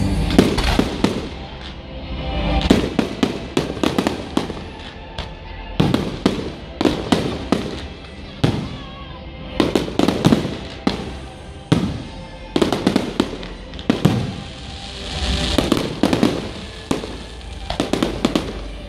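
A fireworks display going off: sharp bangs in quick clusters, with rolling swells of crackle and booms between them and music playing underneath.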